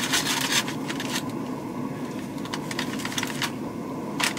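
Brown butcher paper crinkling and rustling as raw carne asada is handled and pulled apart in it, in irregular spells of crackling, over a steady low hum.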